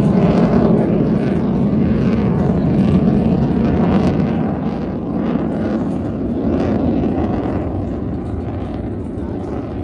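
Military jet aircraft flying past with a steady rushing engine noise, loudest at the start and slowly fading away.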